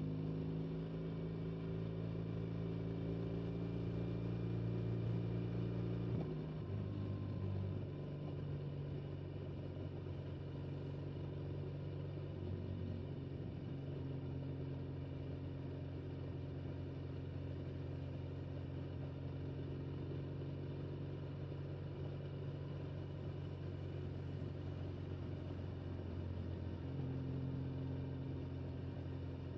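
BMW motorcycle engine running at steady motorway cruising speed. Its note steps to a new pitch a few times, about six seconds in and again near the end, as the speed or throttle changes.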